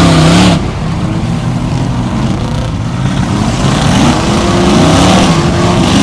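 Off-road trucks' engines revving hard while churning through a deep mud pit, the pitch climbing and falling again and again.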